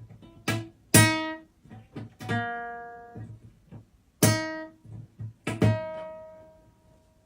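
Acoustic guitar strings plucked at uneven intervals, each note starting sharply and ringing out as it fades; the loudest pluck comes about a second in, and the last note rings on until near the end.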